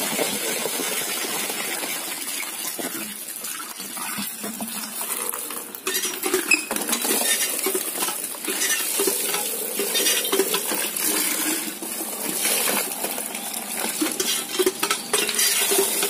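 Live fish, climbing perch and stinging catfish, tipped from a plastic can into a plastic crate: a continuous wet slapping, flopping and clattering against the plastic, with water splashing. The slaps come thicker and louder from about six seconds in.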